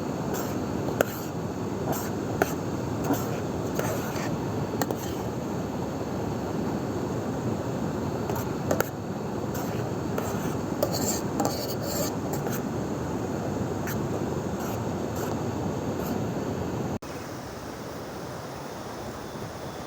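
Metal utensils clinking and scraping lightly against cookware now and then, over a steady rushing background. Near the end the background cuts abruptly to a quieter, softer one.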